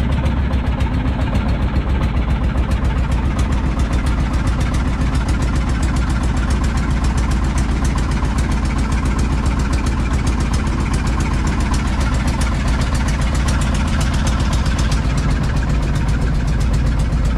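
Engine of a small wooden fishing boat running steadily while under way, with a fast, even beat.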